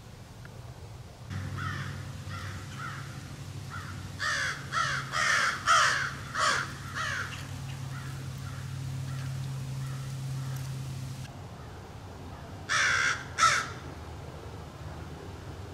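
Crow cawing: a run of about six harsh caws a few seconds in, then two more near the end.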